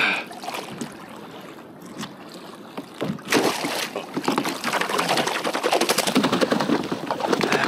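A yellowfin tuna beating its tail in the water against the side of a kayak, a quick run of splashes that starts about three seconds in and grows louder. The fish has just been killed and the thrashing is its reflex spasms.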